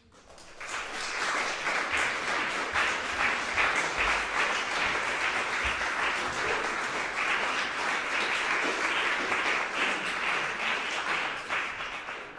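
Audience applauding, a dense patter of many hands that swells in over the first second, holds steady and dies away near the end.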